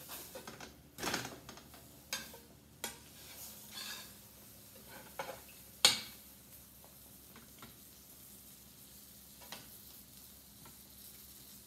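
Metal spatula scraping and knocking against a skillet, with the loudest sharp clack about six seconds in, over the faint sizzle of a fried apple pie frying in butter.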